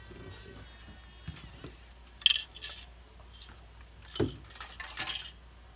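A few light clicks and clinks of small hard objects being handled and set down, the sharpest about two seconds in and a duller knock a couple of seconds later.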